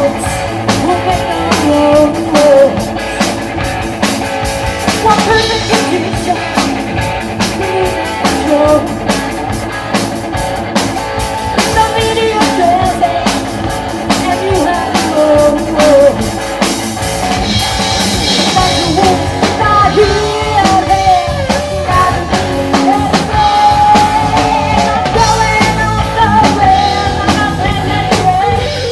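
Live rock band playing hard rock with electric guitar, bass guitar and drum kit, and singing.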